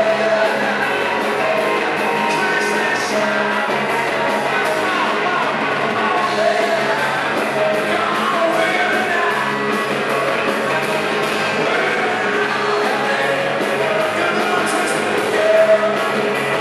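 Rock cover band playing a song, with drums keeping a steady beat of cymbal hits under guitar and bass.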